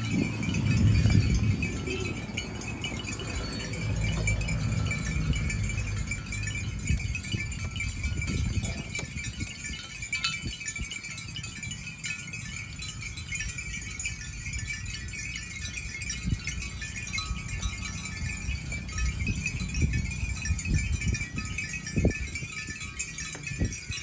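Bells worn by a herd of water buffalo jingling and clinking without pause as the animals walk, over a low rumble that is strongest in the first couple of seconds.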